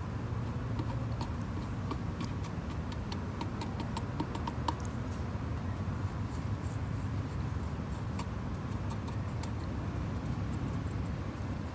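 Small clicks and taps of decorative pebbles and rocks being handled and set into a planter, coming thickest in the first few seconds and again later, over a steady low background hum.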